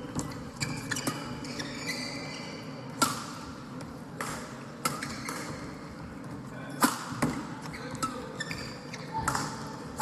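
Badminton rally: rackets striking the shuttlecock in sharp cracks at an uneven pace, the hardest hits about three seconds in and near seven seconds, with short squeaks of shoes on the court floor between shots.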